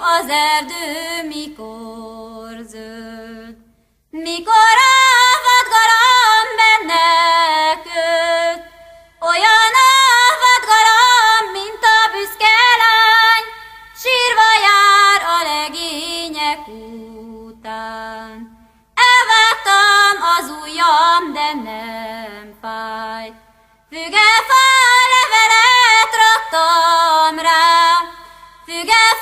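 A woman singing a folk song unaccompanied, in phrases of a few seconds each with short pauses between them.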